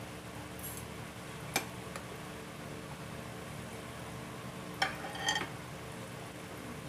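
Metal fork and spoon clinking and scraping against a plate: a single clink after about a second and a half, then a short ringing cluster of clinks about five seconds in, over a steady background hum.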